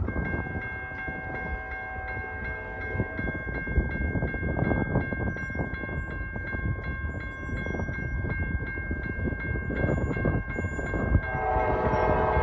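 Railroad grade-crossing bell ringing in a steady, even rhythm, over the low rumble of an approaching train. Near the end the lead locomotive's horn starts to sound.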